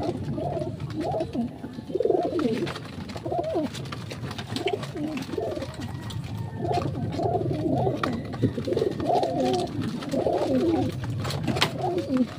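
Racing pigeons cooing repeatedly, with a few sharp snips of scissors cutting a pigeon's flight feathers, one near the middle and a couple close together near the end.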